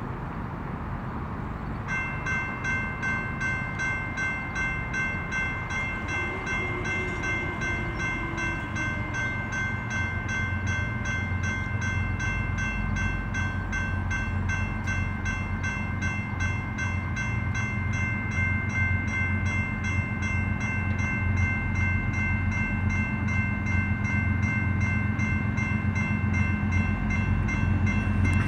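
A grade-crossing warning bell starts about two seconds in and keeps dinging rapidly and evenly, while the low rumble of an approaching BNSF coal train's diesel locomotives grows steadily louder.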